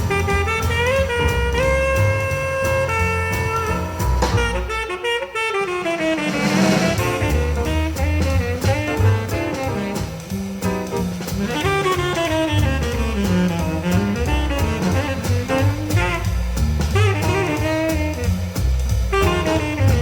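Jazz recording with a saxophone lead over bass and drums, played back through a 300B parallel single-ended tube power amplifier run at full power, which the builder says leaves a little distortion.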